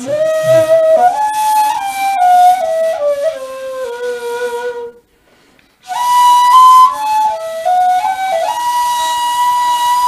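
Long end-blown flute playing a slow melody that steps downward for about five seconds, breaks off for about a second, then comes back higher and settles into one long held note near the end.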